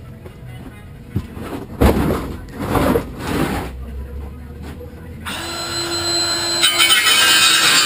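Hollow knocks and thumps as a plastic IBC tote and a cordless circular saw are handled, the loudest about two seconds in. A steady hum comes in about five seconds in.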